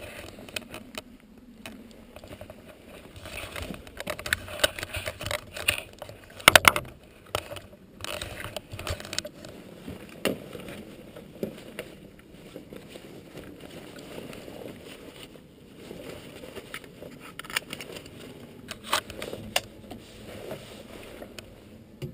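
Close handling noise in a gyrocopter's open cockpit: clothing rustle with scattered clicks and knocks as the pilot settles in and handles straps and controls, the engine not yet running. The loudest knock comes about six and a half seconds in.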